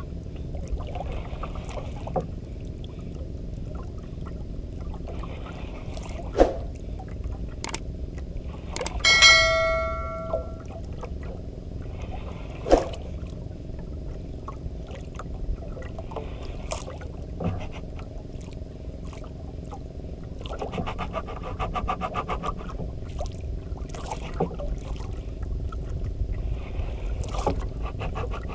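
Steady sea and wind noise aboard a small banka, with a few sharp knocks and one short ringing metallic clink. Later a fast fine ticking comes in and runs on to the end.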